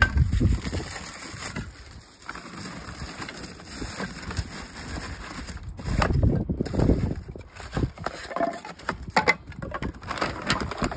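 Scrap wooden boards being handled and laid into a metal fire pit, with scattered knocks and clatter of wood on wood, and low rumbling noise at the start and again about six seconds in.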